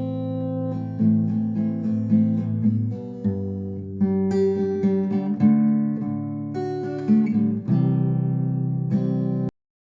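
Background music: strummed and plucked acoustic guitar, ending abruptly near the end.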